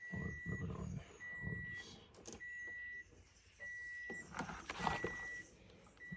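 An electronic beeper sounding a steady high-pitched beep, about half a second on and half a second off, repeating evenly. A short burst of rattling noise comes about four and a half seconds in.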